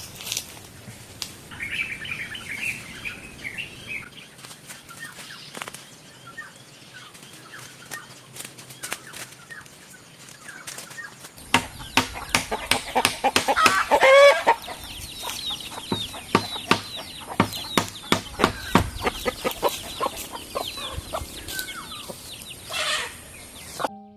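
Free-range native chickens clucking and flapping their wings, with many irregular short flaps and scuffs. A loud drawn-out call about halfway through is the loudest moment.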